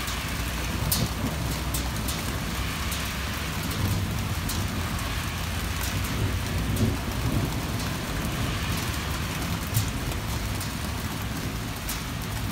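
Heavy rain falling steadily, with a constant hiss and scattered sharp clicks of single drops striking close by. A low rumble runs underneath.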